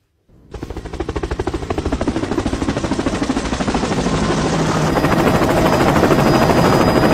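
Helicopter rotor sound spinning up: a fast, even chopping that grows steadily louder, with a thin turbine whine joining about five seconds in. It is most likely a sound effect laid over the cat's spinning head.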